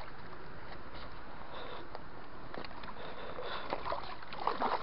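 A large hooked carp thrashing at the water's surface, splashing in short bursts that come more often and louder in the last second or so, over a steady background hiss.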